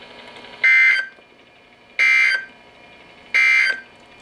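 Emergency Alert System end-of-message signal on NOAA Weather Radio: three short, identical buzzy data bursts about 1.4 seconds apart, marking the end of the warning message.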